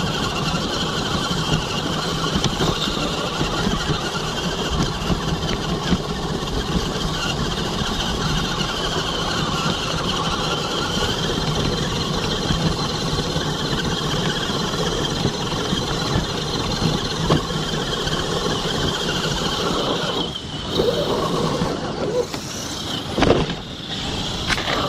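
Radio-controlled crawler's electric motor and gearbox running steadily with a high whine as it drives. Near the end the whine drops away and a few sharp knocks follow.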